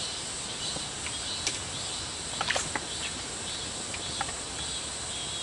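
Insects chirring in a steady high-pitched chorus, with a few faint ticks scattered through it.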